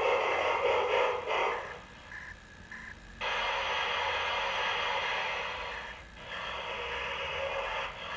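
LGB large-scale model train running on its track, the running noise dropping away a little under two seconds in as the locomotive comes to a stop. About a second later a steady noise starts abruptly and carries on while the train stands.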